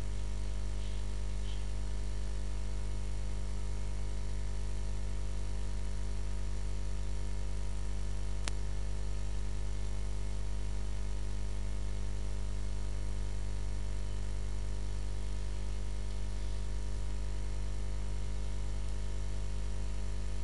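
Steady electrical mains hum and buzz, with one short sharp click a little before halfway.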